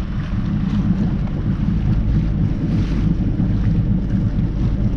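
Wind buffeting the microphone: a loud, rough, steady low rumble.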